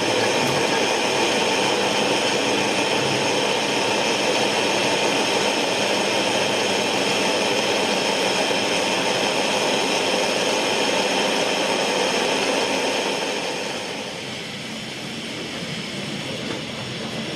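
Steady running noise of a moving rail vehicle, with several steady whining tones; it drops in level about thirteen seconds in and carries on quieter.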